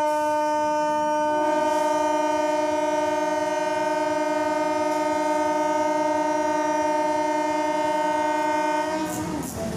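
Locomotive air horn blowing one long steady blast of about nine seconds. A second, higher note joins about a second in, and both cut off near the end.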